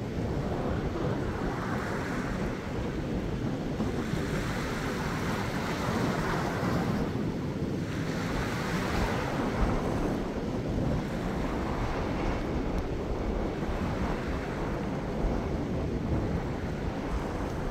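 Small waves washing over a rocky reef shelf, swelling and easing every few seconds, with steady wind rumbling on the microphone.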